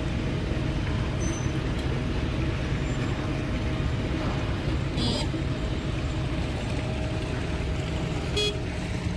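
Heavy diesel construction machinery running steadily, a low engine rumble with a faint steady whine over it, with a short metallic clink about five seconds in and another near the end.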